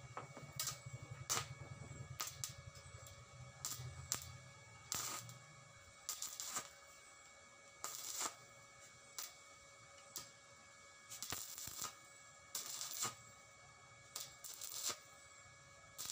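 Stick (arc) welding with a thin 6013 rod on light galvanized tubular steel: the arc crackles and sputters in short, irregular bursts as the frame joints are full-welded. A faint steady hum runs underneath.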